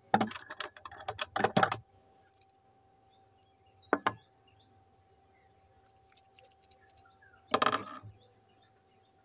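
Small hard objects clinking and rattling on a sewing-machine table as the thread spool is changed: a quick cluster of clicks and rattles at the start, a single click about four seconds in, and another short clatter near the end. A faint steady hum runs underneath.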